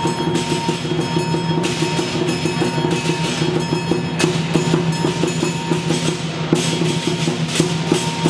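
Lion dance percussion: a large Chinese drum beaten in a fast, steady rhythm with cymbals crashing about once a second.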